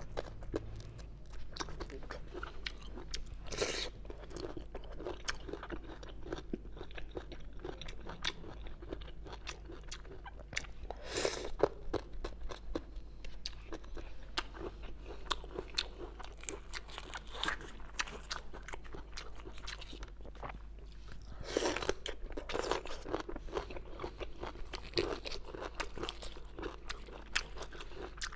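Close-miked crunching and chewing of bamboo shoot, a dense run of crisp bites and chews, with louder crunches about four seconds in, near the middle, and again about two-thirds of the way through.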